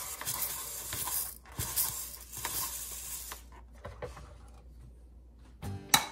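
Dry rice grains pouring from a turn-knob dry-food dispenser into a bowl in two runs, the second stopping about three and a half seconds in. Music starts near the end, with a sharp click.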